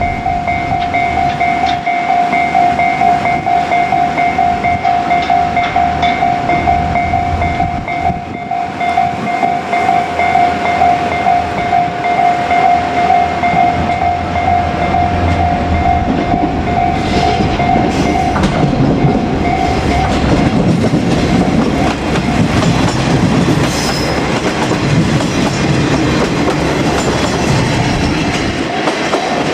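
Railway level crossing warning bell ringing over and over in a steady two-tone clang. A train runs over the crossing, its wheels clattering on the rail joints, the rumble and clatter growing louder about halfway through.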